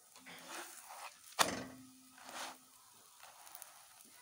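A spatula scraping under a msemen in a cast-iron pan and flipping it. A sharp knock on the pan about a second and a half in rings on briefly, then comes another short scrape.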